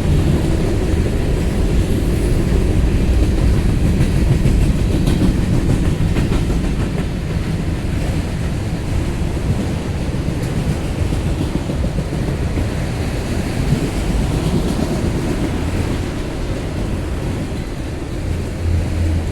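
Freight cars of a long mixed freight train rolling past: a steady rumble of steel wheels on rail, with irregular clicks.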